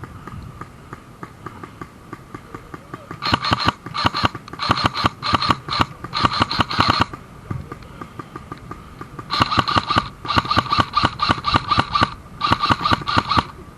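Airsoft rifle firing on full auto in repeated short bursts, each a rapid string of clicks lasting half a second to a second. The bursts start about three seconds in, pause briefly around eight seconds, then resume.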